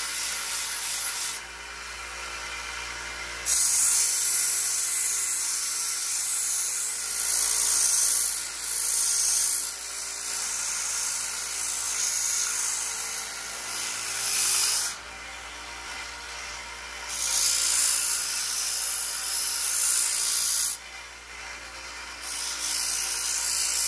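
Small benchtop belt sander grinding the steel of an axe head at the finger relief: a steady hissing grind over the hum of the motor. The grinding breaks off three times for a second or two, about two seconds in, about fifteen seconds in and about twenty-one seconds in, as the steel leaves the belt, and only the running motor is left.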